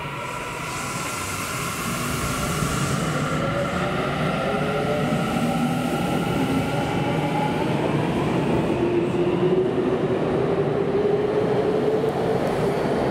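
Electric commuter train pulling out and accelerating, growing louder as its traction motors give a whine that climbs steadily in pitch, over rumbling running noise.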